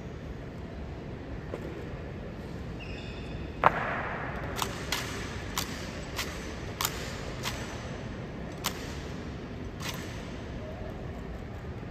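Honor guard's metal-tapped boot heels striking the stone floor in a slow, measured drill. There is one loud clack with a short ring about a third of the way in, then a regular clack roughly every half second to second.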